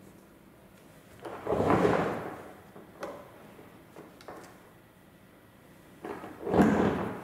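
Two short scraping, rustling sounds, each about a second long, one a little over a second in and one near the end, as a small fabric-draped dress form is handled and turned on a table.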